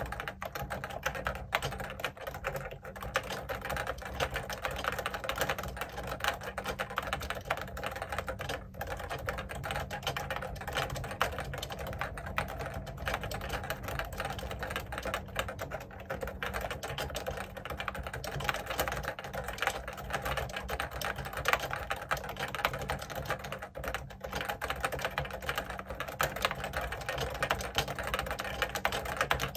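Continuous typing on a JUKI Celavi FK212-JS keyboard with Topre Hipro electrostatic-capacitive switches and 25 g domes, a steady stream of keystrokes, picked up by an iPhone 12 Pro microphone.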